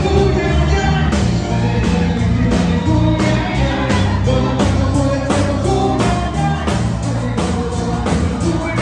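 Live band dance music with singing over a steady drum beat, electric guitar and horns.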